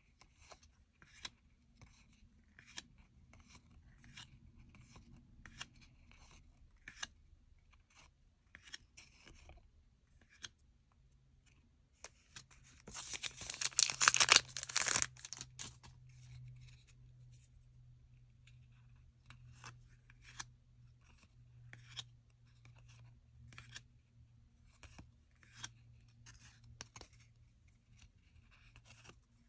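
Trading cards being handled and slid one past another, making light irregular clicks and ticks. About twelve seconds in, a foil trading-card pack is torn open with a loud crinkling rip lasting about three seconds; this is the loudest sound. Afterwards the card clicks resume.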